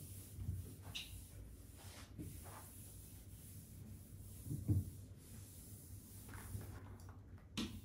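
A cloth rubbing over a household surface as it is wiped, in short scrubbing strokes. There is a soft knock a little past halfway and a sharp click near the end.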